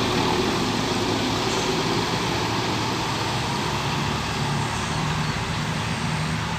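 Large diesel bus engine running, with steady road and traffic noise; a low engine hum becomes more distinct about four seconds in.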